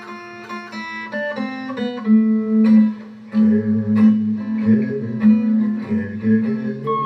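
Steel guitar playing a run of plucked notes; about two seconds in, a steady strummed guitar accompaniment with a low bass line joins it.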